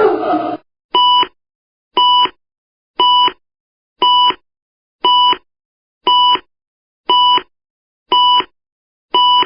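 Electronic warning beeper sounding short, identical, buzzy beeps about once a second, nine in all. In the first half second, the tail of a different harsh buzzing alarm tone cuts off.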